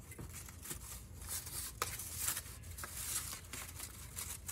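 Printer-paper strips rustling and crinkling as hands gather and press them together, with a few short crackles.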